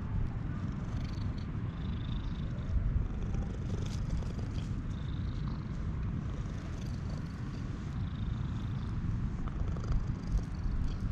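Orange tabby cat purring steadily while being stroked.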